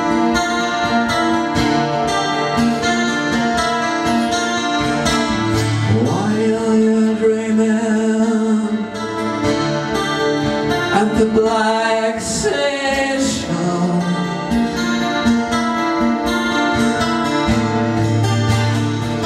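Live song performance: an electric guitar rings out sustained chords, with a voice singing at times.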